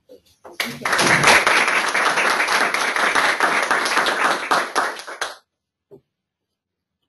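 Audience applauding for about five seconds, starting about half a second in and then stopping.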